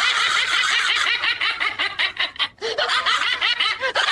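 High-pitched, rapid laughter that changes in character about two and a half seconds in.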